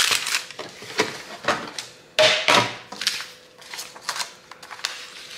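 Kitchen handling noise: plastic piping bags set aside, and a silicone baking mat lifted and shifted on a metal sheet pan to slide a paper template under it. Several short rustles and light knocks, the loudest just past two seconds in.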